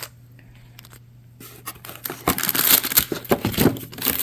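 Packaging being torn open and crinkled by hand, starting about two seconds in after a few soft handling clicks.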